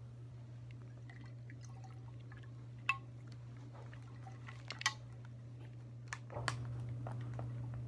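Liquid dripping with scattered small clicks and two sharper clinks, over a steady low hum that grows louder about six seconds in.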